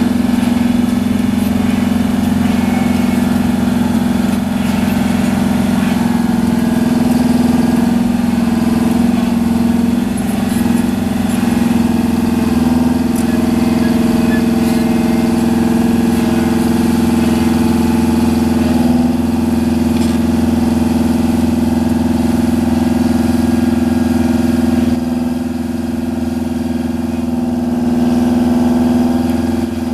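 Terex 82-40 crawler dozer's diesel engine running steadily as the machine works, a constant low drone that eases a little for a few seconds near the end.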